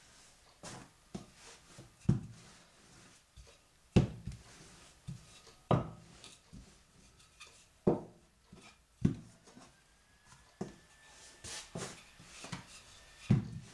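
Pie pastry being rolled out with a wooden rolling pin and turned by hand on a floured worktop: a dull knock every second or two, at an uneven pace.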